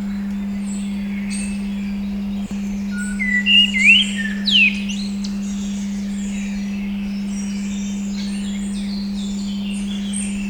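A steady 200 Hz pure tone under recorded birdsong. Several birds chirp throughout, with a louder run of rising and falling whistled calls about three to five seconds in. The tone dips briefly about two and a half seconds in.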